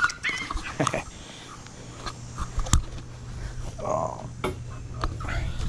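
A small dog whimpering briefly, once near the start and again about four seconds in, amid scattered clicks and rustling, over a faint low steady hum.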